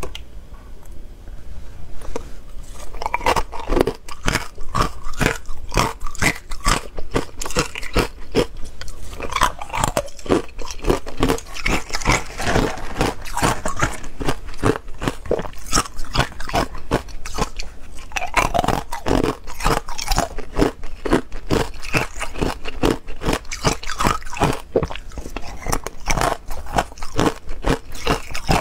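Hard ice cubes dusted in matcha powder being bitten and chewed close to the microphone: dense, sharp crunching that picks up about two seconds in and carries on almost without a break.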